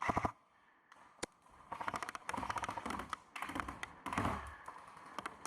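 Airsoft electric guns firing: a single shot about a second in, then rapid full-auto strings of quick, evenly spaced clicks, one long burst in the middle and a shorter one near the end.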